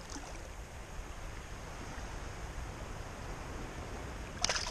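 Steady wash of shallow water around a wading angler's legs and hands as a bream is lowered back in to be released, with a brief splash near the end.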